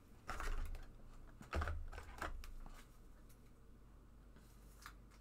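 Trading cards being handled and slid through a stack, giving a few short rustles and scrapes in the first half.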